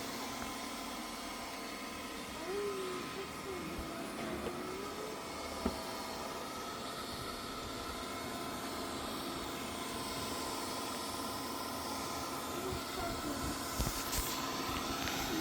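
Xiaomi H40 robot vacuum running, a steady whirring hiss with a constant hum.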